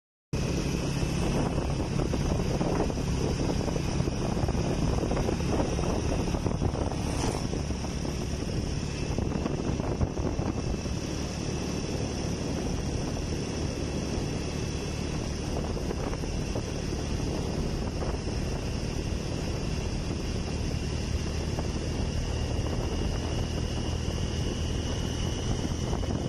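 Honda motorcycle engine running steadily at cruising speed, with wind noise on the microphone.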